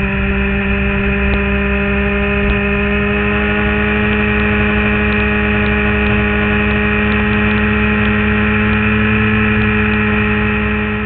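Suzuki GSX-R sportbike's inline-four engine running at high, nearly constant revs on a track lap, heard from an onboard camera with wind rush. It fades out near the end.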